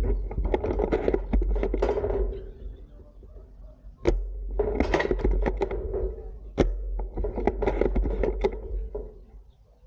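Airsoft guns firing in a skirmish: sharp single shots about four and six and a half seconds in, among clusters of rapid rattling strokes, over a steady low rumble on the microphone.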